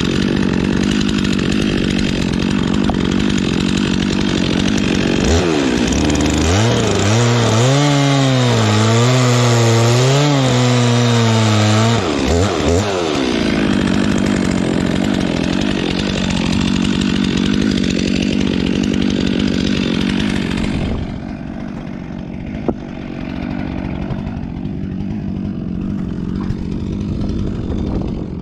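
Stihl MS 362 chainsaw's two-stroke engine running at high revs. About five seconds in it drops to a low, unsteady idle, revs back up near the thirteen-second mark, then runs quieter and duller from about twenty-one seconds on.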